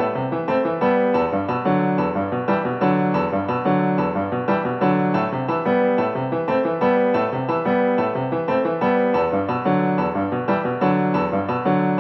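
Background piano music with a steady, even rhythm.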